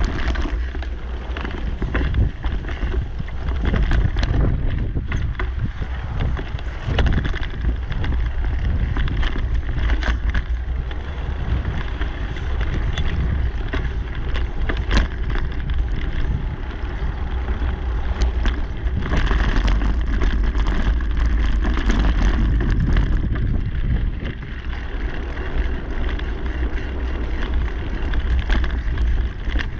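A mountain bike rolling fast along a dirt singletrack, heard from a camera mounted on the bike or rider: wind buffets the microphone with a steady low rumble over the hiss of the tyres, and the bike clicks and rattles over bumps.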